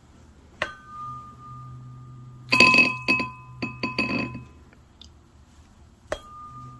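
Tuning fork struck and ringing with a steady high tone, then its vibrating tines dipped into a bowl of water, splashing and buzzing with a run of sharp glassy clinks. Struck again near the end and ringing steadily.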